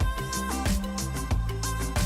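Background music with a steady drum beat and a sliding melody line.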